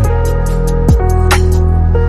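Background music: an electronic track with a steady beat of kick drum and hi-hat over held synth tones.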